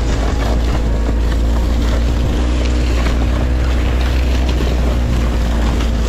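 Snowmobile engine running steadily while towing a sled through snow, a constant low drone with a few steady tones, mixed with wind buffeting the microphone.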